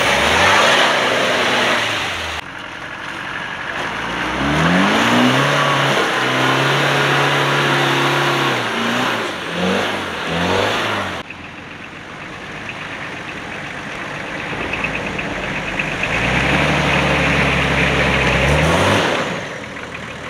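Off-road 4x4 engines revving as the vehicles push through deep mud, one vehicle after another with abrupt cuts between them. The engine pitch climbs and holds, dips and rises again, then holds steady before falling near the end.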